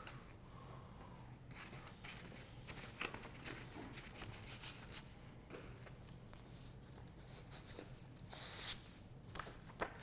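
Faint rustling and light taps of paper sheets being leafed through in a box, with a louder rustle a little after eight seconds as one sheet is drawn out.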